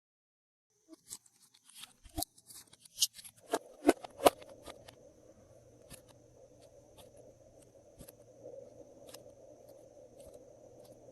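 Glossy slime being worked by hand, with add-ins mixed in: a run of sharp sticky clicks and pops, loudest about four seconds in, then softer steady crackling and squishing with occasional small clicks.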